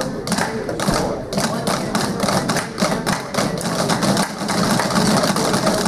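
A group of drumsticks striking drum pads together in a fast run of many quick strokes.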